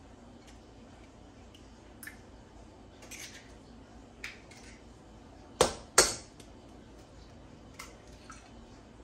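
Two sharp knocks about half a second apart, an egg tapped against the rim of a stainless steel mixing bowl to crack it, with a few faint clicks of eggshell and bowl before and after.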